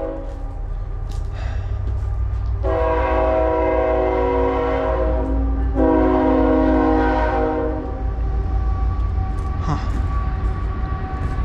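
Train horn sounding a chord of several steady tones: one long blast from about 2.5 seconds in, followed right away by a second, louder blast that stops about 8 seconds in, over a steady low rumble of the passing train.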